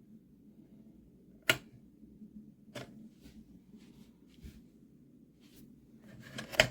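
A few scattered sharp clicks and light knocks over a quiet room hum, the loudest about one and a half seconds in, with a short scuffle and another click near the end.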